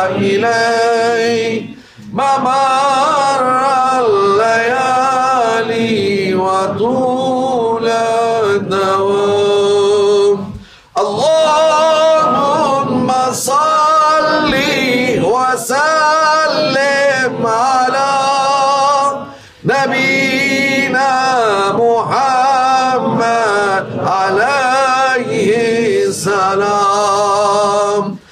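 A man singing an Arabic salawat (prayer of blessing on the Prophet Muhammad) solo, in long ornamented phrases with wavering, sliding pitch and short pauses between them.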